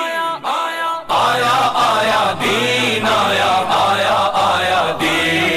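Male voices chanting a rhythmic slogan-song in chorus. A single lead voice holds a sung line at first, then about a second in a large group of voices comes in with a pulsing, repeated chant.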